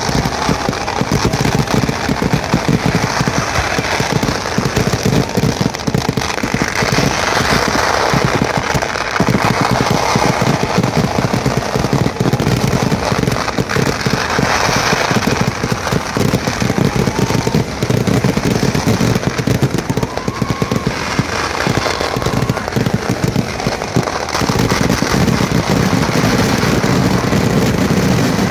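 Kerala temple-festival fireworks (vedikkettu) going off in a continuous rapid barrage: firecrackers exploding so fast that the bangs run together into one dense crackle, growing heavier near the end.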